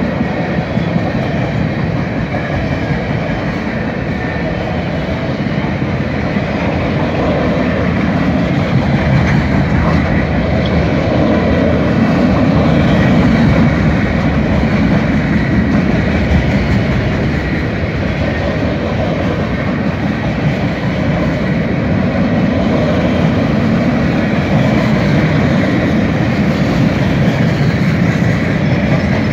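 Freight train cars rolling past at speed: a steady sound of steel wheels running on the rails, growing a little louder toward the middle.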